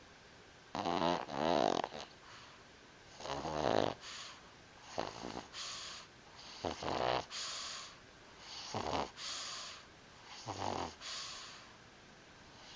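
Pug snoring in its sleep. Each breath is a rough, buzzing snore followed by a breathier hiss, repeating about every two seconds, about six times.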